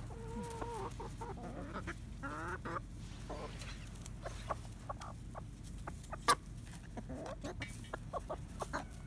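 Hens clucking in short, wavering calls while they peck mealworms, with scattered quick taps of beaks on dry ground; one sharper tap about six seconds in.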